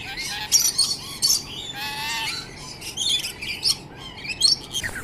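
Birds chirping and calling: many short high chirps one after another, with one longer call about two seconds in.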